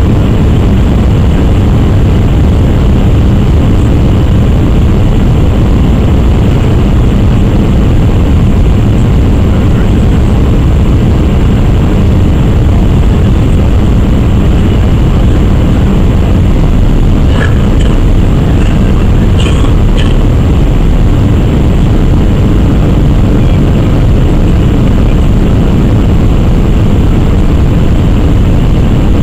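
Steady cabin noise inside an Airbus A319-100 in flight: a loud, even rush of the engines and airflow, strongest in the low range. A few faint clicks or rattles come briefly in the second half.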